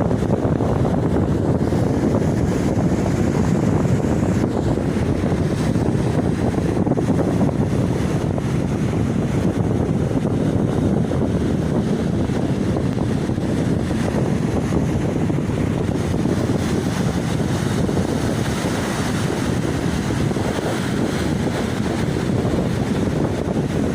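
Sea surf breaking and washing on a beach, a steady low rumble of water mixed with wind buffeting the microphone; a brighter hiss of washing water comes up in the last third.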